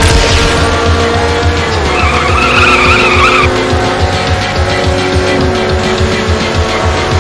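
Car engines running with a wavering tire squeal from about two seconds in, over music with a steady thumping bass beat.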